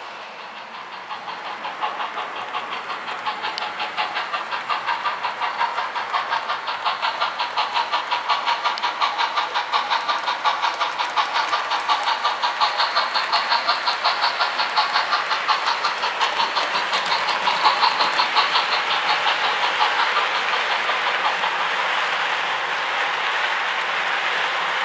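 HO scale model train running along the track: a fast, even rhythmic clicking over a steady whir, building over the first few seconds and loudest in the middle.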